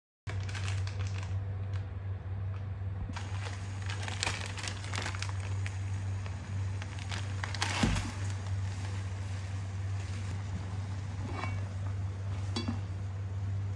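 Instant noodle packet crinkling and rustling as it is handled over a pot of boiling water, with a loud short splash-like hit about eight seconds in as the noodle block goes in, then the noodles bubbling and being turned with tongs. A steady low hum runs underneath.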